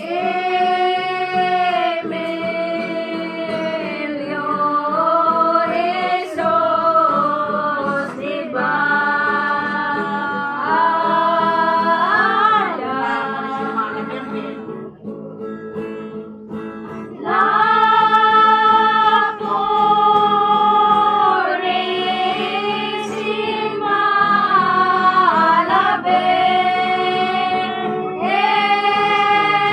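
A group of mostly women singing a song together, accompanied by strummed acoustic guitars, in long held phrases. The singing drops away briefly about halfway through, then comes back in.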